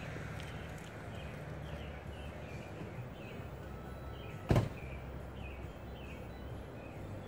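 Outdoor ambience: a steady low rumble with small birds chirping over and over, and a single sharp knock about four and a half seconds in.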